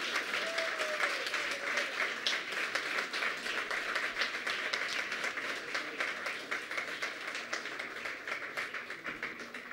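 Audience applauding: dense, steady clapping that thins out near the end.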